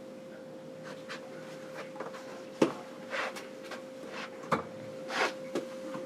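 Quiet handling noises: scattered light clicks and taps with some brief rustling, over a faint steady hum.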